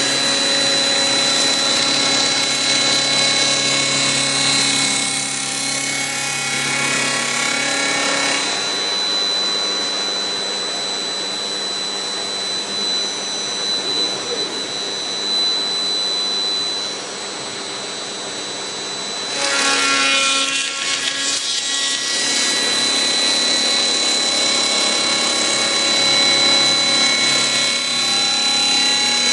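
Routech OIKOS CNC machining center's spindle running at high speed with a steady high whine while its cutter machines a wooden beam. About a third of the way in the sound thins to an even hiss for roughly ten seconds, then the fuller machining sound comes back.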